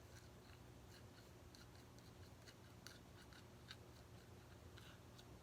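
Faint, irregular small clicks and pops from Nickelodeon slime being squeezed and stretched in the hands, over near-silent room tone.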